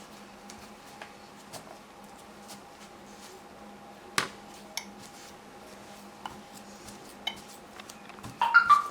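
Small objects handled on a worktable while a neoprene patch is glued: a few scattered light clicks and taps, then a short cluster of clinking knocks near the end, over a faint steady hum.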